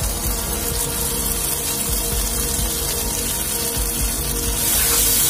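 Background music over a steady sizzle of masala frying in a kadai. About four and a half seconds in, the sizzle grows louder and brighter.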